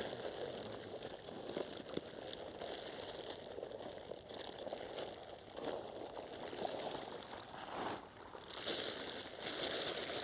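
Faint splashing and sloshing of water, with many small irregular ticks, as live fish are handled and released.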